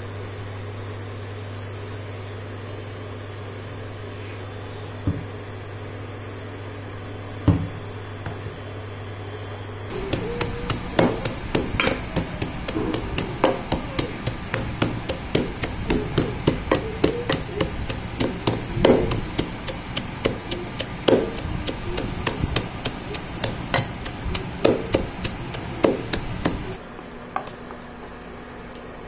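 Hand-pressed plunger vegetable chopper pushed down again and again to chop sliced red onion: a fast run of clicks with heavier knocks, starting about ten seconds in and stopping near the end. Before it a steady low hum from the induction cooktop, with two single knocks.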